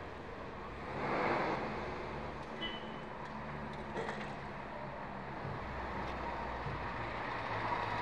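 Street traffic: vehicle engines running with a steady low hum, one vehicle swelling past about a second in, and a brief high squeak near the middle.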